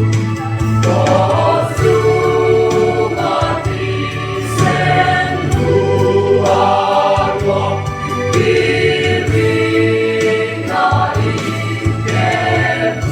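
Gospel music: a choir singing in long held notes over a steady low accompaniment.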